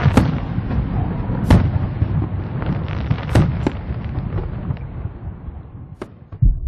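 Fireworks going off: several sharp bangs a second or two apart over a steady low rumble, fading away near the end.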